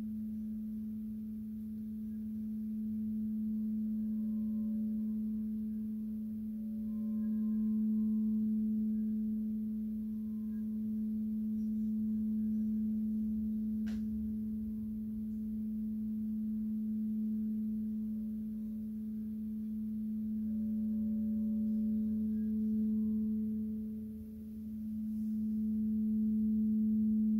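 12-inch frosted quartz crystal singing bowl tuned to A, sung by circling its rim: one steady low tone with a fainter higher overtone, swelling and easing slowly in loudness, dipping briefly near the end before building again. A faint tick about halfway through.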